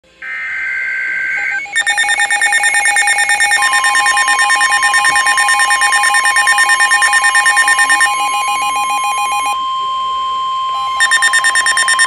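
NOAA weather alert radios going off for a warning. A short burst of digital alert-header data comes first, then rapid pulsing alarm beeps from the radios. From about three and a half seconds in, the steady NOAA Weather Radio warning alarm tone joins them. The beeping pauses for about a second and a half near the end and then resumes over the steady tone.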